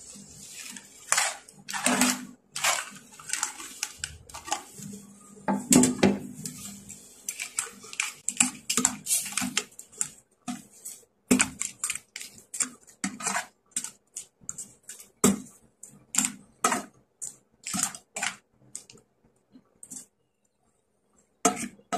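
Blue swimming crab pieces tipped from a plate into a metal pot of soup, then stirred with a plastic ladle: many irregular clacks and knocks of shell and ladle against the pot, loudest about six seconds in and thinning out near the end.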